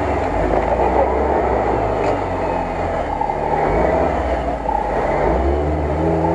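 Off-road 4x4 engines running in deep mud, their revs rising and falling every second or two.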